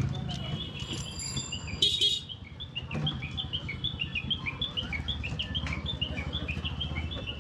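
Birds chirping in a rapid run of short high calls, several a second, over the low steady hum of a 100cc motorcycle engine. A brief high whistling tone sounds about a second in, and a short loud hiss about two seconds in.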